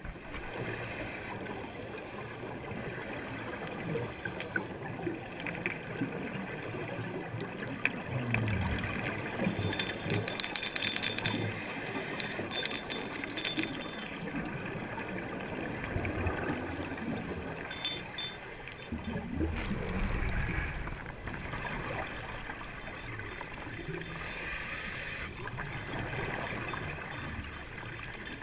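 Underwater sound heard through a camera's waterproof housing: scuba divers breathing on their regulators, with exhaled bubbles gurgling and rushing in swells. About ten to fourteen seconds in comes a run of sharp clicks and rattles.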